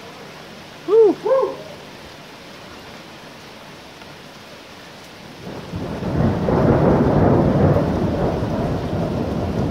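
Steady heavy rain, then a long rolling rumble of thunder that builds about five and a half seconds in and carries on, following a lightning flash. Two brief pitched calls, rising then falling, stand out over the rain about a second in.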